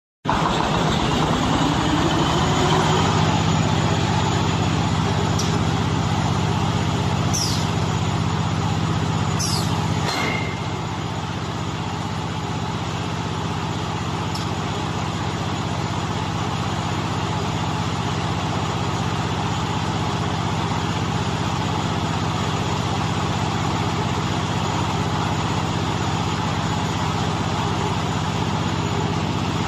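Silage baler machine running with a steady mechanical drone. A whine rises in pitch over the first few seconds, and a few sharp clanks come at about seven to ten seconds in.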